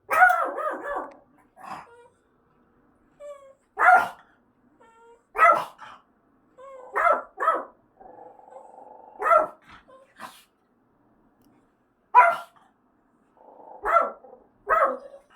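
Pet dog barking at the fire-alarm siren from the apartment's wall speaker. About a dozen sharp barks come singly and in pairs, a second or two apart, with a faint steady tone in the gaps.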